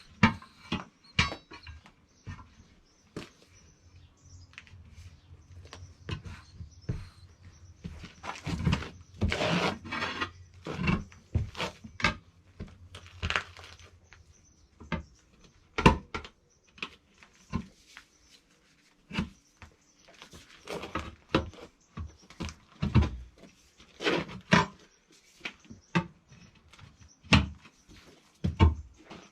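Irregular knocks and clanks of hand tools working on a tractor wheel and tyre, with a faint low steady hum through the first half.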